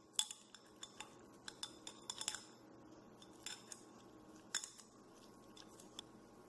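Chopsticks clicking and tapping lightly against a ceramic bowl while pulling apart a piece of pan-fried turnip cake, a scatter of faint separate clicks with a quick cluster a couple of seconds in.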